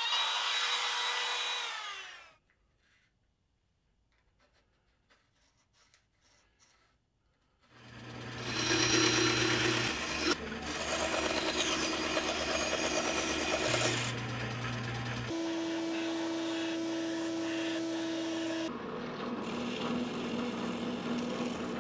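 A Makita trim router cuts wood and then winds down about two seconds in, followed by a few faint ticks. After a pause of several seconds a power saw cuts a disc out of a board. Then a machine runs with a steady hum, and a drill bit bores through plywood discs.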